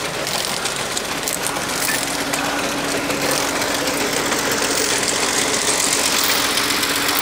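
Truck-mounted borewell drilling rig's engine running steadily, with a steady hum that joins about two seconds in.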